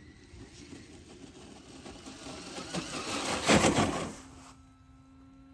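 Traxxas Rally Slash RC car with a Velineon brushless motor running fast over grass and dirt. It grows louder to a peak about three and a half seconds in as it passes close, then drops away quickly. A steady low hum follows near the end.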